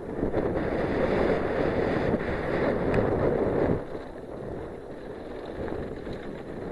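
Wind buffeting the mountain bike's camera microphone, mixed with the Giant Glory downhill bike's tyres rumbling and rattling over the trail. The rumble is loud on the grid-paver section, then drops off about four seconds in as the bike rolls onto dirt.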